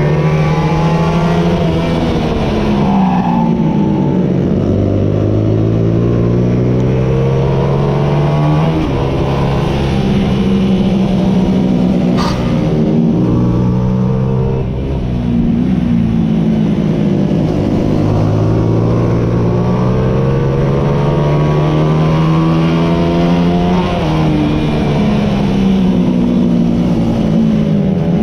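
Onboard sound of a 125 cc racing motorcycle engine at full throttle, its pitch climbing through the revs and dropping at each upshift, then falling away as the bike slows for bends. A brief click about twelve seconds in.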